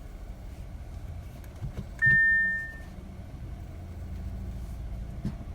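Cabin noise of an Audi A4 Avant (B9) driven slowly: a steady low rumble with a few faint knocks. About two seconds in, a single clear high tone starts suddenly and fades out within a second. This is the stretch recorded for an abnormal noise when turning or on rough roads at low speed, which a dealer could not trace.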